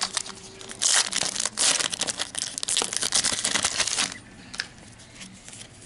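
A Topps trading-card pack wrapper being torn open and crinkled for about three seconds, then quieter handling of the cards with a few soft clicks.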